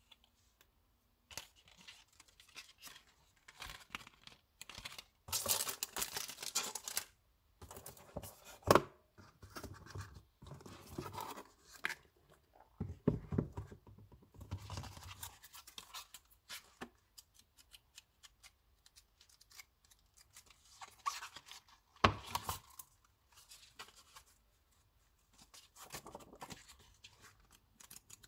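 Packaging being handled and opened: irregular rustling, scratching and tearing, with a few sharp clicks and knocks.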